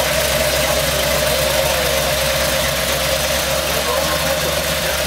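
An engine idling steadily, with a constant drone and no revving.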